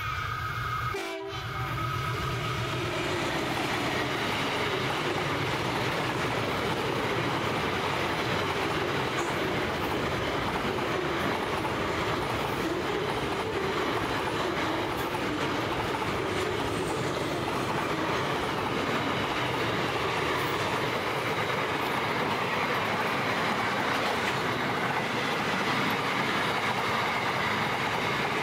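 SCT class locomotive's horn sounding, cutting off about a second in; then the locomotive and its long train of container wagons roll past close by, wheels clattering steadily on the rails.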